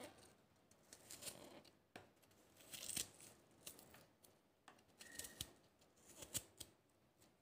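Kitchen knife slicing a shallot held in the hand, thin slices cut off one after another: a series of faint, crisp cuts at uneven intervals.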